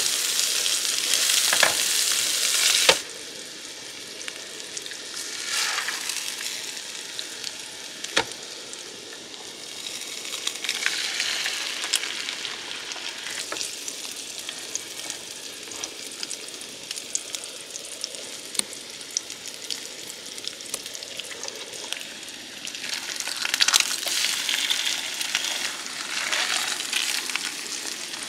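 Vegetables and eggs frying in oil in a nonstick pan on a portable gas camp stove: a steady sizzle, with sharp taps and scrapes of a wooden spoon and then a spatula against the pan. The sizzle is loud for the first three seconds, drops suddenly to a softer hiss, and grows louder again near the end as the spatula works the eggs.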